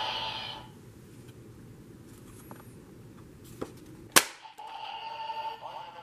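Electronic sound effects from a Kamen Rider-style visor toy: a tone-laden electronic sound that stops within the first second, a single sharp gunshot-like crack about four seconds in, then another electronic sound holding a steady high tone.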